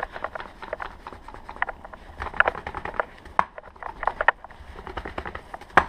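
Honda S2000 propeller shaft (driveshaft) shaken by hand to check for looseness inside, rattling with many irregular light clicks and knocks, with one sharper knock near the end.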